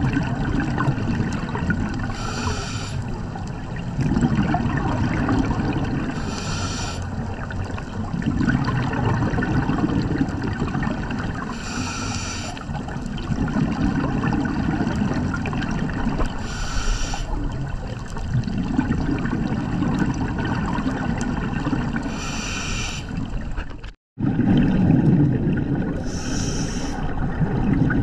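Scuba diver breathing on a regulator underwater: a short hissing inhale, then a longer rush of bubbling exhaust, repeating about every four to five seconds for six breaths. The sound cuts out for a moment near the end.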